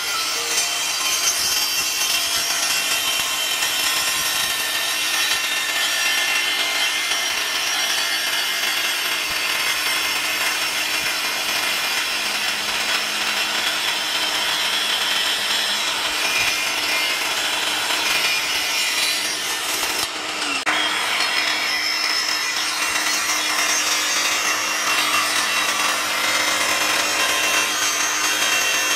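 Electric miter saw running, its spinning blade cutting through a wooden blank with a steady whine and rasp. The sound dips briefly about twenty seconds in.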